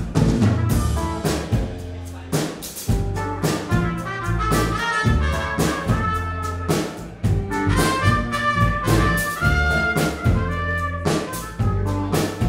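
Live band playing: a trumpet carries the melody over cello, electric guitar and a drum kit keeping the beat.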